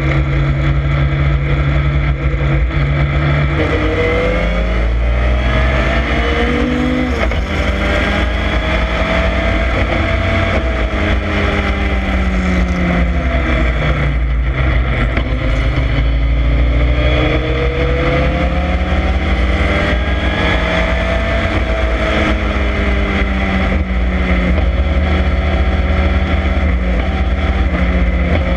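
1965 Ginetta G4's engine at racing speed, heard from on board. The pitch climbs for several seconds, falls away, then climbs and falls again, over a steady low rumble.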